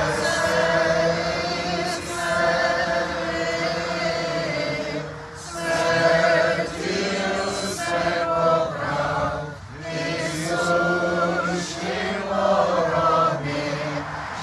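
A congregation and choir chanting a Byzantine Paschal hymn together, in sustained sung phrases with brief breaks at about five and nine and a half seconds in.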